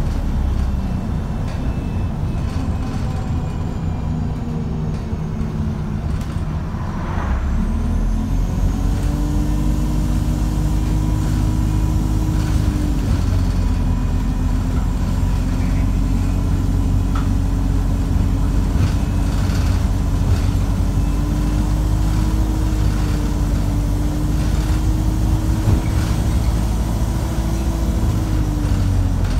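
Alexander Dennis Enviro350H bus engine running under load, heard from inside the upper deck. Its pitch climbs about seven seconds in, then holds with small dips as it keeps pulling. The engine is one the uploader calls thrashed and unhealthy.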